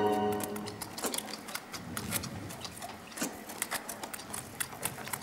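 Orchestral string music fading out, then a rapid, irregular patter of sharp clicks, several a second.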